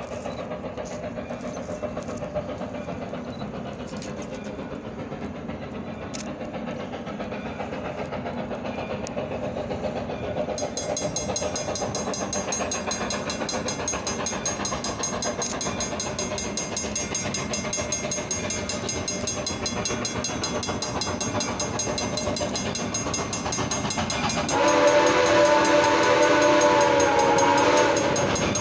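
Soo Line 1003, a 2-8-2 Mikado steam locomotive, working upgrade with a freight, its exhaust stack talk growing louder as it approaches. Near the end its steam whistle sounds one long chord-like blast of about three seconds.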